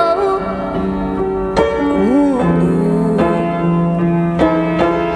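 Beale upright piano playing slow held chords, with fresh notes struck about a second and a half in and again near the end. A woman's voice slides up and back down briefly about two seconds in.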